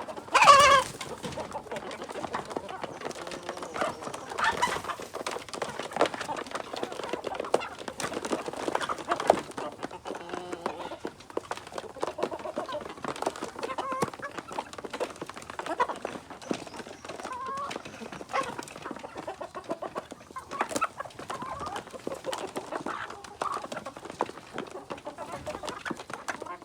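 A flock of kampung chickens clucking and calling, with one loud call just after the start and scattered short clucks after it.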